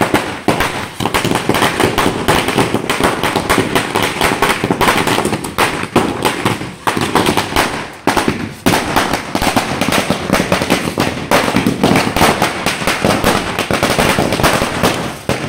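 A string of small firecrackers going off, a rapid, almost unbroken series of sharp bangs, with a few short lulls.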